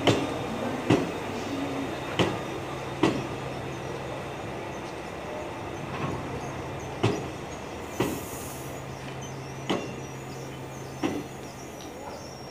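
Old Busan Metro Line 1 subway cars rolling slowly past under tow. Their wheels clack sharply over rail joints at uneven intervals of about one to two seconds, over a steady low hum, with a brief hiss about eight seconds in.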